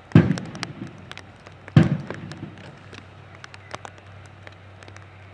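Rifle drill by a banner escort party: two sharp strikes with an echo, about a second and a half apart, as the arms movement is carried out, followed by a few faint clicks.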